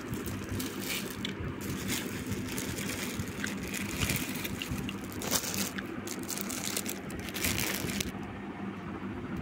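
Plastic snack packets crinkling and rustling in irregular crackles, which die away near the end, over a steady low hum.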